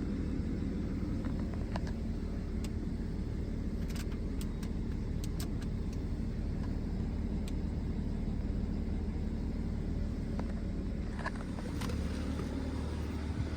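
BMW 335d's twin-turbo straight-six diesel engine running steadily with a low rumble. A few light, sharp clicks come about four to six seconds in.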